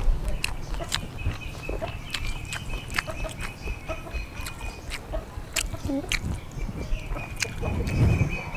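Someone eating rice noodle soup: chewing with sharp clicking mouth sounds throughout, and a louder slurp of a mouthful of noodles near the end.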